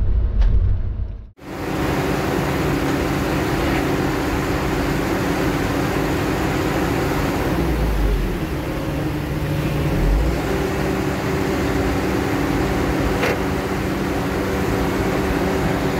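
Briefly a log loader's engine running, heard from inside the cab; after a sudden cut about a second in, a loaded log truck's diesel engine runs steadily as the truck pulls away, its note shifting a couple of times midway.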